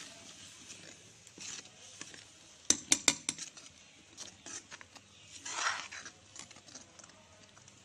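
Steel ladle stirring watery masala gravy in a steel kadai, clinking and scraping against the pan, with a quick run of sharp clinks about three seconds in and a short scrape a little before six seconds. A fading sizzle from the just-added water is heard at the start.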